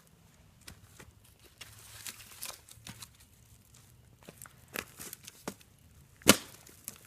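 Footsteps crunching irregularly on dry leaves and twigs, with one sharp, much louder crack about six seconds in.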